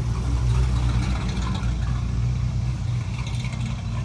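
A car engine idling nearby, a steady low rumble.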